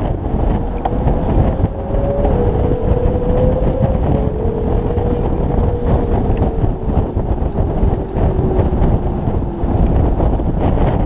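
Heavy wind buffeting on a motorcycle-mounted camera at track speed. Underneath, the motorcycle's engine note is faintly audible, climbing for the first few seconds and then falling away gradually.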